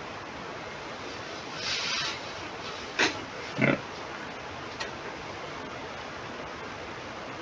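Steady microphone hiss with a few short noises from the person at the microphone: a breathy rush about two seconds in, then a click and a short nasal sound just after.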